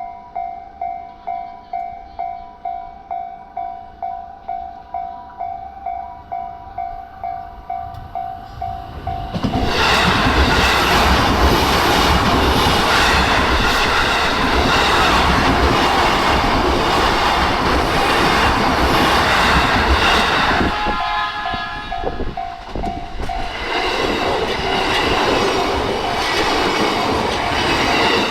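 A Japanese level-crossing warning bell chimes steadily at about two strokes a second. About ten seconds in, a Chuo Line commuter train with Green cars passes close by, its wheels clattering on the rails, and drowns out the bell. The train noise eases briefly near the end, letting the bell through, then rises again.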